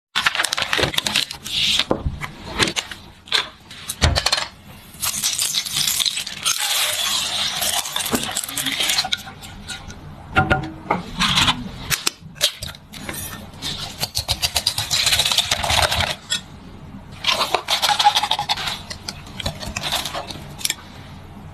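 Kitchen clatter: utensils and dishes clinking and tapping again and again, with several stretches of rustling or scraping lasting a few seconds each.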